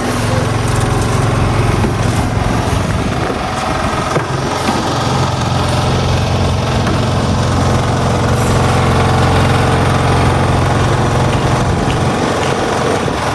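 An engine or motor running steadily with a low hum, which fades off about a second before the end.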